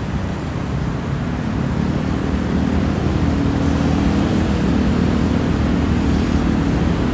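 Steady low mechanical hum over a rumble, growing a little louder and more tonal from about a second in.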